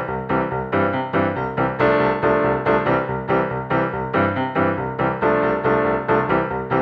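Background music led by piano or electric piano, with rapid repeated notes and a steady beat.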